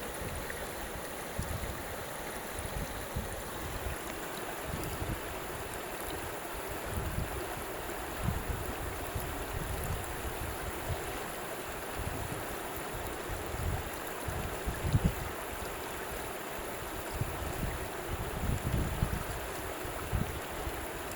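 Flowing water making a steady rushing hiss, with irregular low gusts of wind buffeting the microphone.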